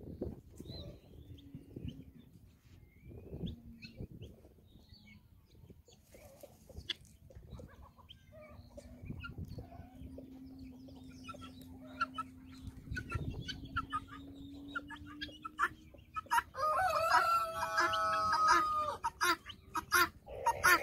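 Guinea fowl and peafowl feeding: scattered pecking clicks and soft clucks, over a faint steady low hum. Near the end a loud, long pitched call lasts about two and a half seconds.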